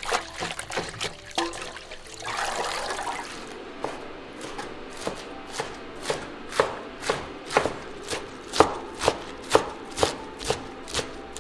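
Hands swishing napa cabbage leaves in a metal basin of water, splashing. Then a cleaver chopping the leaves on a wooden cutting board in steady, evenly spaced strokes, about two a second.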